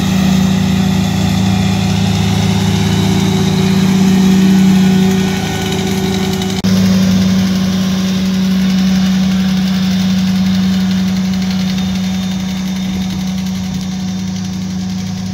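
Kubota BX2680 compact tractor's three-cylinder diesel running steadily while driving its PTO-driven lawn vacuum blower: a constant low engine hum with a higher whine from the spinning blower. The sound changes abruptly about six and a half seconds in, then fades slightly near the end as the tractor moves away.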